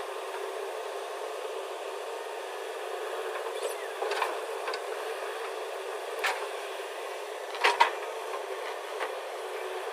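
Steady machinery hum with a few scattered sharp knocks, the loudest a quick double knock about three-quarters of the way through.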